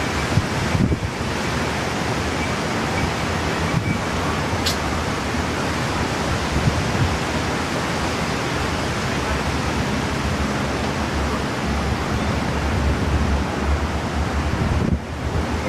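Steady rushing of typhoon wind and rain, with wind buffeting the microphone.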